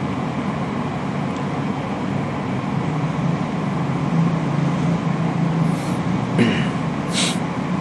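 Steady background hum and hiss with no speech, with two short hissy sounds near the end.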